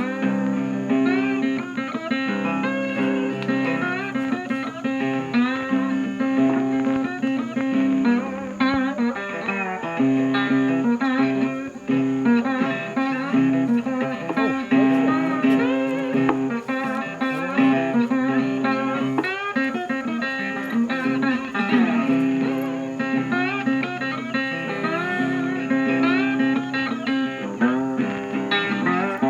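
Background music: a blues tune on guitars, plucked notes with bent, sliding pitches over a steady bass line.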